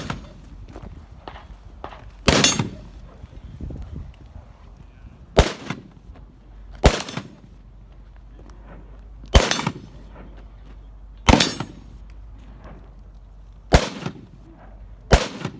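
Seven gunshots fired one at a time, one and a half to two and a half seconds apart, each trailing off in a short echo.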